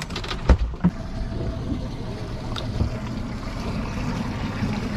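A plastic cooler lid shutting, a couple of knocks in the first second, then steady wind and sea noise on the open water.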